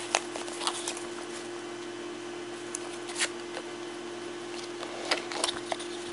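Rustling and light taps of a ribbon being untied and a cardboard gift box being handled and its lid lifted off, in short scattered bursts over a steady background hum and hiss.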